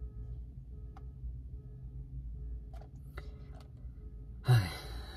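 A low steady rumble with a few faint ticks as a cardboard box is turned in the hands, then a short voiced sigh near the end.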